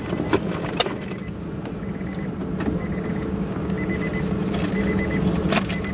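A car running, heard from inside the cabin: a steady low hum, a few sharp clicks, and short high beeps in quick runs that come several times.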